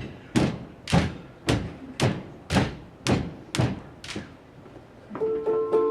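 A handbell choir keeps a steady beat of dull thumps, a little under two a second. About five seconds in, the handbells start ringing sustained chords over it.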